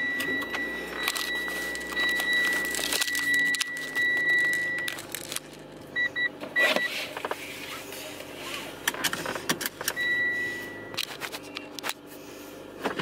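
Inside a car: the engine starts running with a low steady hum as the car's electronic warning chime sounds a steady high tone for about five seconds, then three short beeps around six seconds in and a brief tone again near ten seconds. Keys jangle, with clicks and rustling of handling in the cabin.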